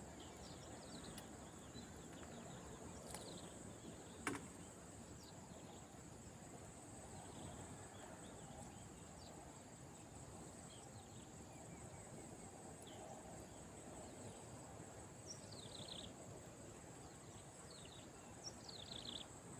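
Faint insect drone, a steady high buzz, with brief falling bird chirps scattered through it and a single sharp click about four seconds in.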